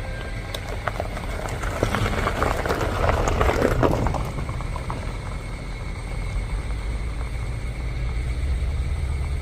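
Diesel locomotive engine rumbling low and steady while switching. A few sharp clanks come near the start, and a louder rattling clatter rises and fades between about two and four seconds in.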